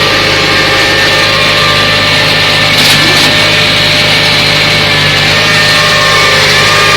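Claas Arion tractor engine running steadily while working a Grimme SE 75-30 potato harvester, with the machinery's rushing noise over the engine. A couple of short rattles sound about three seconds in.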